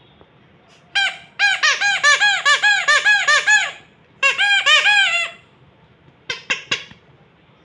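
A squeaky toy squeezed over and over: quick runs of short pitched squeaks, each rising then falling, about five a second, in three runs, then a few single squeaks near the end.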